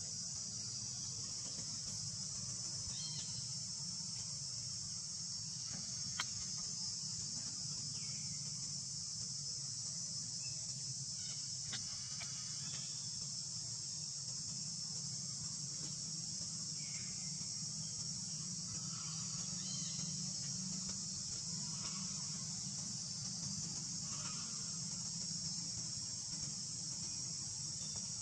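A steady, unbroken high-pitched chorus of insects, with a low steady hum beneath it and one sharp click about six seconds in.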